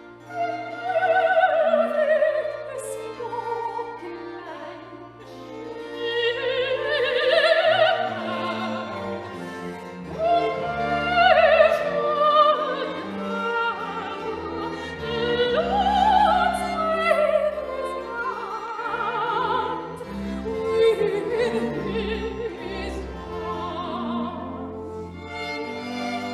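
Soprano singing a Baroque aria with wide vibrato over an orchestra of strings, the voice rising and falling through long sustained phrases.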